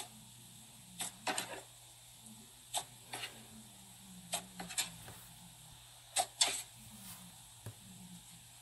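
Slime being kneaded and squeezed by hand, giving short, sharp clicking pops, mostly in pairs every second or two, as air pockets in the slime are pressed out.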